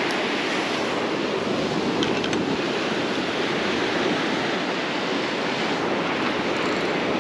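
Ocean surf breaking and washing up a sandy beach: a steady rushing noise.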